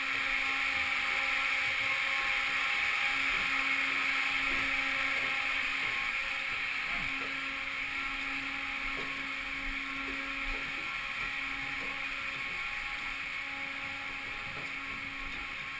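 A steady mechanical whirring hum with a few held tones, easing slightly in the second half, with faint footsteps on concrete stairs.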